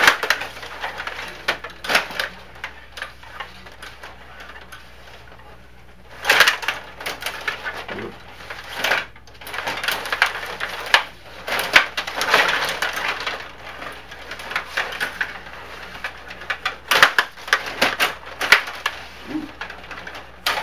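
Stiga rod hockey table in play: plastic players, control rods and puck clicking and clattering in irregular bursts, with a quieter lull a few seconds in.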